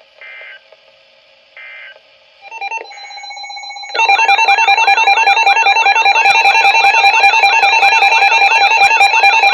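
Two short digital data bursts from the weather radio broadcast, the end-of-message code after a tornado warning. About four seconds in, loud weather-alert alarms start and overlap: steady beeping tones under warbling tones that cycle about three times a second.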